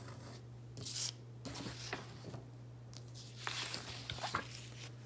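Paper brochure pages being handled and turned, with two spells of rustling, one about a second in and a longer one past the middle, over a steady low hum.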